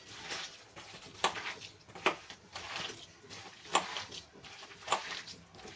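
A hand squelching through thick, wet gram-flour batter full of chopped potato and onion in a steel bowl, with a few sharp clicks against the metal bowl.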